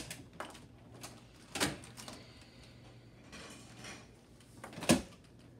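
Plastic clacks and clicks of a Nerf blaster being handled and worked: three sharp knocks, the loudest near the end, with faint rattling between.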